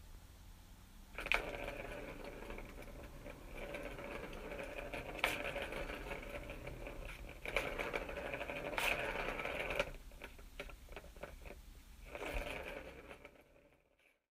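Skateboard wheels rolling over a paved road, a steady rattling rumble broken by a few sharp clacks. It eases off about ten seconds in, returns briefly, then stops.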